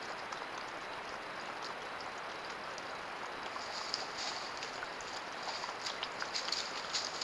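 Steady hiss of a trail camera's microphone, with scattered faint ticks and rustles from a mountain lion and her cub moving over rocks and dry leaves at a watering hole.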